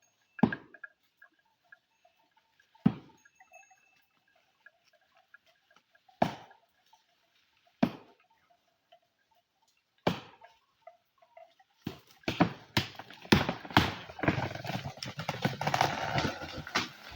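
Hand chopping into a tree: five single, sharp blows at uneven intervals of roughly two to three seconds. From about twelve seconds in, a dense crackling and rustling of branches and leaves builds and grows louder.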